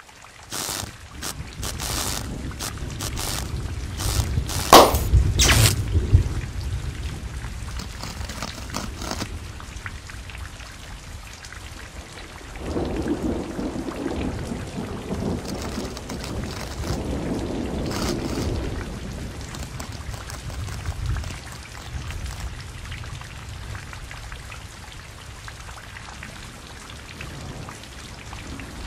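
Steady rain-like hiss with a low rumble like thunder, sharp crackles in the first six seconds and the loudest rumble about five seconds in.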